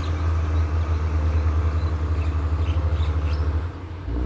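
Diesel railcar engine working under power as the railcar moves off, with a deep, pulsing throb. The throb drops away for a moment near the end, then picks up again.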